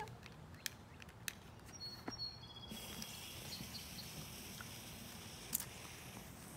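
Faint hiss of a fountain firework's lit fuse burning down, setting in about three seconds in and throwing off a few sparks, with a few light clicks before it.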